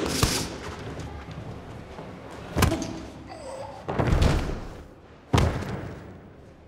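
Punches with boxing gloves landing as sharp smacks, then a heavier, deeper thud about four seconds in as a body falls onto the ring canvas, and one more sharp smack a second later.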